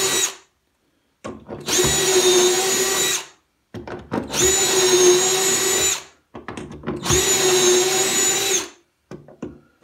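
Cordless drill boring shelf-pin holes through a drilling jig into a cabinet side: three runs of about two seconds each at a steady motor whine, with short pauses and small clicks between holes as the bit moves to the next hole.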